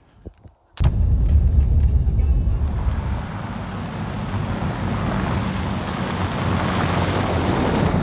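A Ram 1500 pickup's engine cuts in suddenly about a second in with a deep rumble, then the truck is driving on a gravel road, with a broad hiss of tyres and wind that swells near the end.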